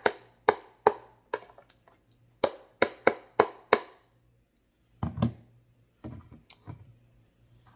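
Sharp knocks and clicks of kitchen items being handled, about two to three a second for the first four seconds, then a single thump about five seconds in and a few fainter clicks.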